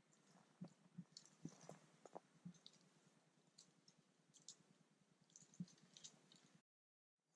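Near silence, with faint scattered clicks and rustles; the sound drops out completely for a moment near the end.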